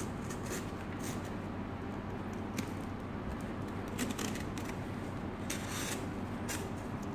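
Utility knife scratching and slicing at the clear plastic wrap and tape of a cardboard parcel: a run of short scraping cuts, with one longer cut near the end, over a low steady hum.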